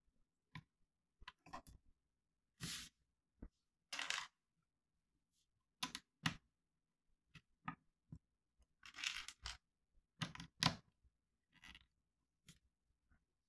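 Small plastic Lego bricks being handled and pressed together on a table: scattered sharp clicks and brief scraping sounds at irregular intervals.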